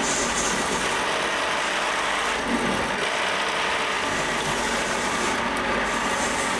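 Bench drill press running steadily as its bit drills into a small red block.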